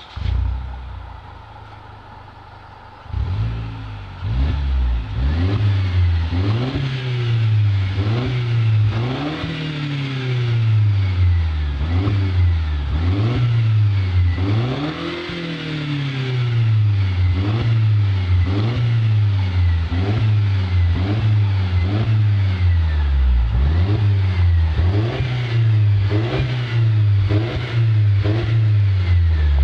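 Mercedes-Benz SLK (R172) with an aftermarket MGmotorsport.pl exhaust: the engine fires with a loud flare that settles to idle over a couple of seconds. It is then revved over and over in short throttle blips, about one a second, the exhaust note rising and falling with each.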